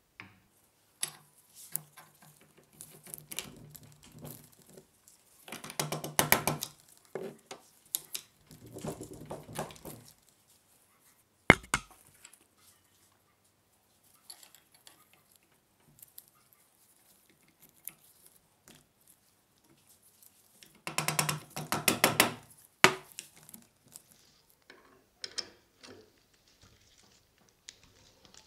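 Hand tools working on the metal parts of pneumatic pruning shears: wrench and socket tool clicking and clinking as bolts and screws are tightened, with two runs of rapid ratchet-like clicking, around six seconds in and again around twenty-one seconds in. A single sharp metal knock comes near the middle and another shortly after the second run.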